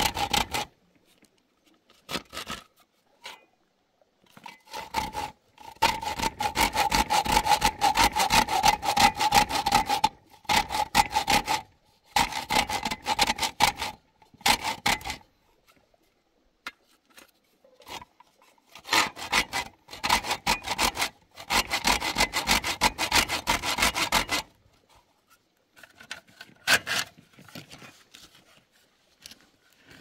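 Hand saw cutting in several bouts of quick back-and-forth strokes, with short pauses between bouts.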